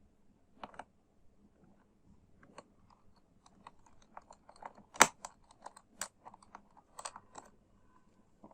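A run of light clicks and ticks from small parts being worked by hand inside an open laptop, with a sharper click about five seconds in and more about six and seven seconds in: a small screwdriver tightening the screw that holds down the new M.2 SSD.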